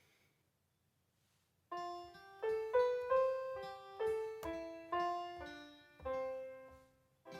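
A short single-note melody played from a MIDI keyboard through GarageBand's guitar instrument on an iPad: about a dozen notes, each starting sharply and fading. It begins a little under two seconds in.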